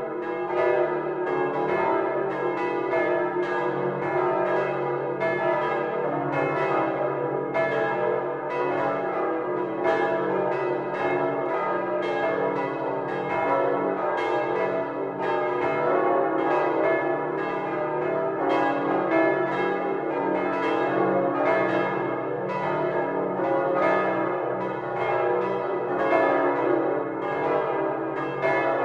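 The Domtoren's full peal: all its large bronze swinging bells, rung by hand, striking together in a dense, unbroken stream of overlapping strokes, with each bell's hum ringing on under the next strikes. It is heard loud and close from inside the bell chamber.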